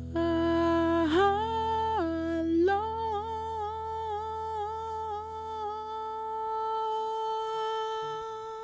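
A man's voice sings a slow wordless melody in long held notes that step up and down, then waver in vibrato and settle on one long steady note. Under it an acoustic guitar chord rings and fades away.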